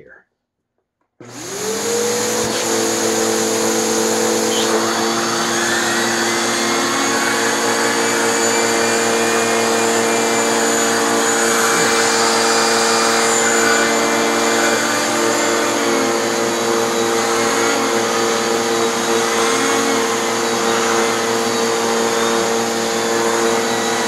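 A Bissell PowerForce upright vacuum switches on about a second in, its motor spinning up with a brief rising whine and then running steadily and loudly. Suction drives the hose's air-powered yellow turbo brush over a fabric cushion, and the brush keeps spinning on the upholstery.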